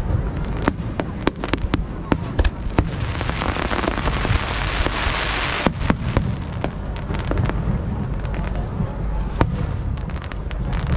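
Fireworks display: a rapid, irregular series of sharp bangs and pops over a low rumble. A dense hissing crackle swells from about three seconds in and cuts off sharply near six seconds.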